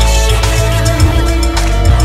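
Music: a pop song with heavy bass and a steady drum beat, without sung words at this point.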